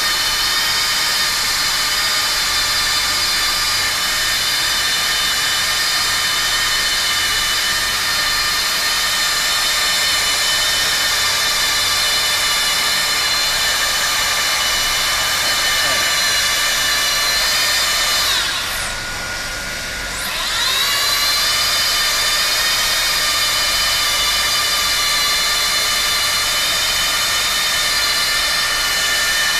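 Automatic hot-air plastic welding machine running with a steady high whine. About two-thirds of the way through, the whine sinks in pitch and drops in loudness for about two seconds, then climbs back to its steady pitch.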